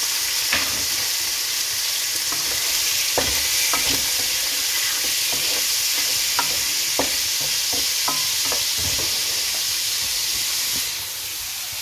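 Food sizzling as it fries in a nonstick frying pan, stirred with a wooden spatula that clicks and knocks against the pan now and then. The sizzle grows a little quieter near the end.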